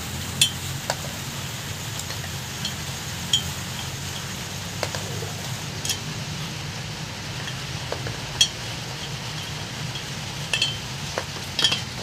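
Scattered light metallic clicks and clinks of a pliers-type tool against a Suzuki F6A cylinder head as the old valve stem seals are pulled off the valve guides, about nine irregular clicks over a steady low hum.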